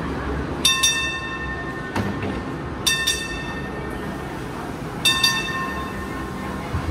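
Hong Kong Light Rail train's bell ringing a double ding three times, about two seconds apart, over the low rumble of the light rail vehicle. There is a single sharp knock just after the first double ding.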